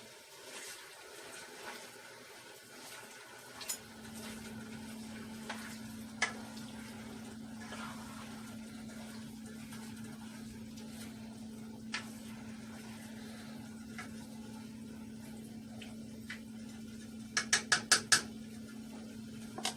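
A utensil stirring and clinking in a pan of chicken and onions frying in oil, with scattered knocks. A steady hum starts about four seconds in. Near the end a quick run of five sharp metallic clinks is the loudest sound.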